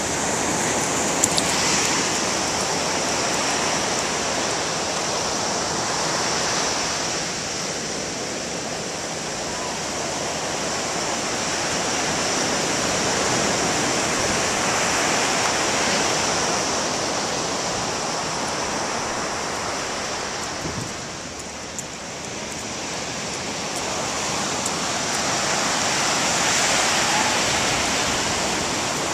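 Ocean surf breaking and washing up a sandy beach: a steady rushing that slowly swells and eases, dipping briefly about three quarters of the way through.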